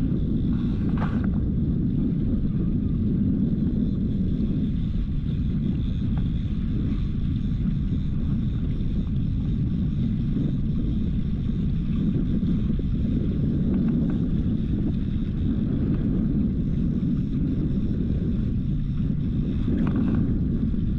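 Small fishing boat's motor running steadily at trolling speed, with some wind noise on the microphone.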